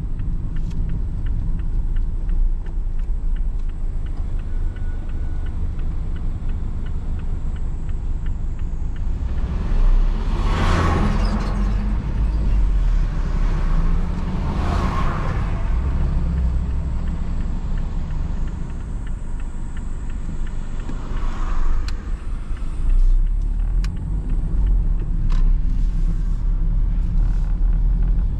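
Mazda ND Roadster on the move, heard from the driver's seat: a steady low rumble of engine and road noise. Three brief louder whooshes come and go, about ten, fifteen and twenty-one seconds in.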